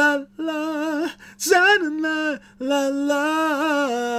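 A man singing sustained notes in a light, unstrained voice: three phrases with short breaks, the last a long held note with wide vibrato.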